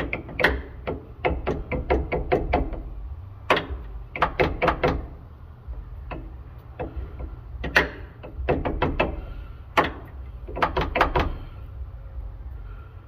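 Metal clicks and clanks from hand tools and parts being handled during repair work on a truck's rear axle, coming in short irregular clusters over a steady low hum.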